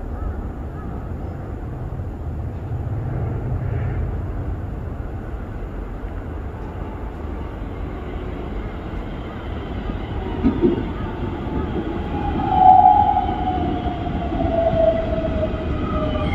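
Keikyū 1000 series electric train approaching and slowing into the station, its running rumble on the rails growing louder. From about two-thirds of the way in, a motor whine falls steadily in pitch as the train brakes.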